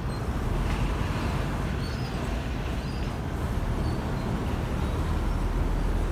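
Steady low rumble of a river ferry's engine, mixed with the running of motorbikes riding on and off the landing ramp.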